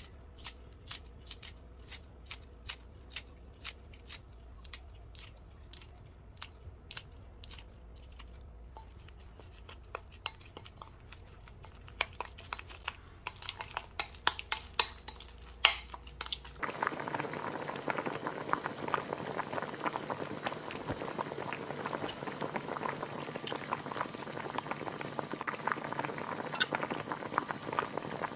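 Kitchen scissors snipping green onion into a glass bowl, about two snips a second. Then a utensil stirring red pepper paste sauce in the glass bowl with clinks and scrapes. From about two-thirds of the way in, a pot of bean sprouts and thin wheat noodles boiling steadily.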